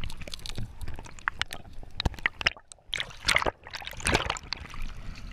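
Underwater water noise around a diving action camera: sloshing and gurgling with scattered sharp clicks and knocks, and two longer loud rushes of water about three and four seconds in.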